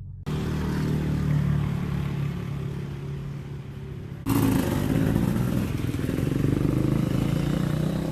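Dirt bike engine running steadily. It is heard in two stretches, with a sudden cut about four seconds in straight into a second, similar stretch of engine sound.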